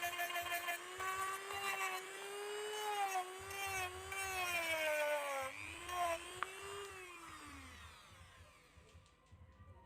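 Small electric hand drill or rotary tool whining, its pitch wavering and sagging as it is loaded, then running down and stopping near the end. A single sharp click comes partway through.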